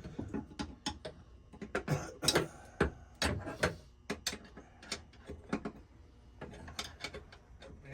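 Hand tools working on metal fuel-line fittings: irregular sharp clicks and taps, a few each second, with no steady rhythm.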